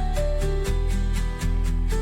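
Background music: an instrumental track with a steady, quick beat, bass and sustained melody notes.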